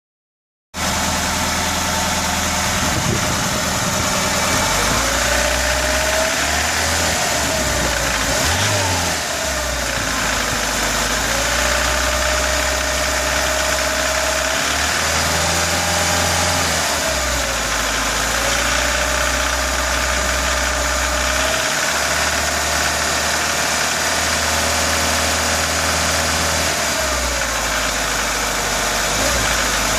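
VAZ-2106 1.5-litre inline-four engine running and revved up and down several times. A knock comes in between 2000 and 3000 rpm even with a new camshaft and a Pilot chain tensioner fitted.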